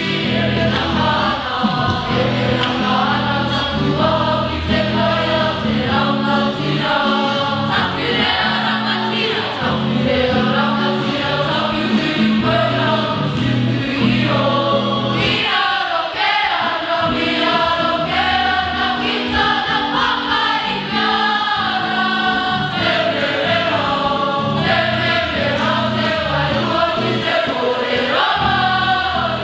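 A group of voices singing a Māori song together over steady chordal instrumental accompaniment. The backing drops away for a moment about halfway through.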